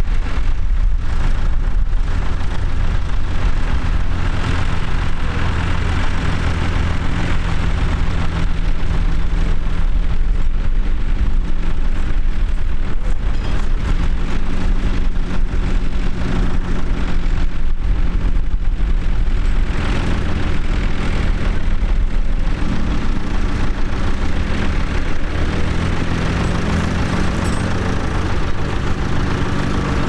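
Farm tractor's diesel engine running steadily under load as it pulls a plough through stubble, its engine note shifting a little now and then.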